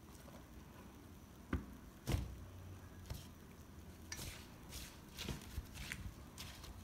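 Hands mixing a chopped vegetable salad in a metal bowl: a few faint knocks and clicks, the clearest about a second and a half and two seconds in, then scattered light ticks.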